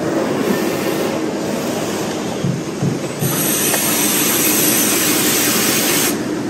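Machine noise from a seal-turning lathe. About three seconds in, a compressed-air blow gun hisses steadily for about three seconds, then cuts off sharply, blowing the freshly turned seal clean.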